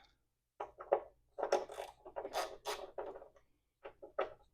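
Short scraping and clicking sounds of hand tools working on metal, several quick bursts in a row, as the fork pinch bolts are worked loose.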